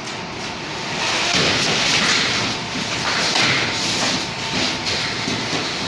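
Metal studs of a gypsum wall frame scraping and rattling against each other and the board debris as the frame is pulled down, a continuous rough noise that swells and eases unevenly.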